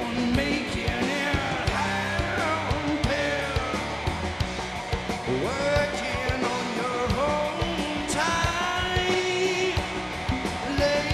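Live rock band playing: electric guitar over bass and drums, with a man singing.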